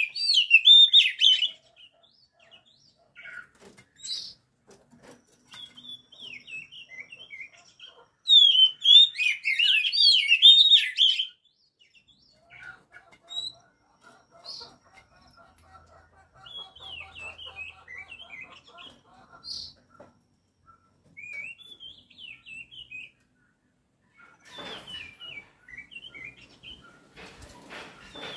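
Oriental magpie-robin (kacer) singing: loud bursts of rapid, varied warbling song, one at the start and another about eight seconds in. Quieter scattered chirps and calls follow, with some rustling near the end.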